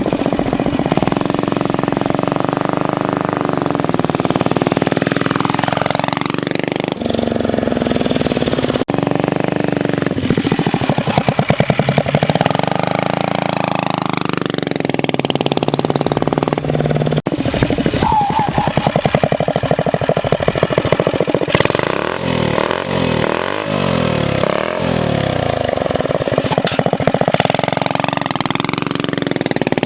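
Minibike's small single-cylinder engine running under riding, its pitch rising and falling as the throttle is opened and closed, with quick blips of revs a little past the middle. The engine is running a little rich, which the builders put down to a carburettor jet that is too big.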